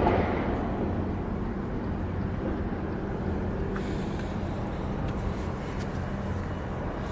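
Steady low engine drone from a large container ship passing close by: an even two-tone hum over a rushing haze, with a short bump right at the start.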